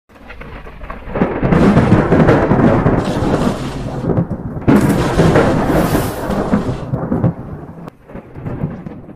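Thunder sound effect: two long rolling rumbles, the first building from about a second in, the second breaking in sharply near the middle and dying away near the end.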